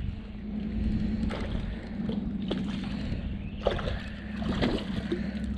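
Steady low rush of creek water running by, with a few light knocks and taps as a freshly caught small brown trout is handled.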